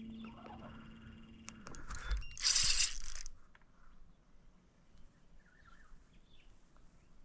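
Spinning reel worked while fighting a hooked fish snagged in timber: reel and drag clicking. A steady hum cuts off just under two seconds in, and a loud rush of noise lasting about a second follows.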